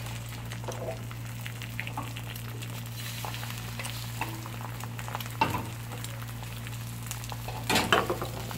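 Oil sizzling faintly in a small nonstick frying pan on a gas burner, with a few light clicks and knocks of pan and utensils over a steady low hum. Near the end there is a louder burst of sizzling and spattering as beaten eggs hit the hot oil for scrambled eggs.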